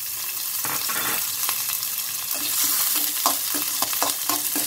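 Sliced onions sizzling in hot oil in a metal kadai. From about halfway in, a utensil stirs them, with repeated short scrapes and clicks against the pan.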